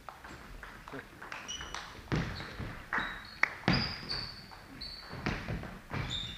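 Sports shoes squeaking and feet thudding on a wooden sports-hall floor as table tennis players move between points, with a few light clicks.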